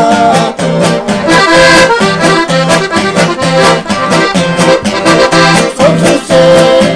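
Piano accordion playing a ranchera melody over an acoustic guitar strummed in a steady, even rhythm.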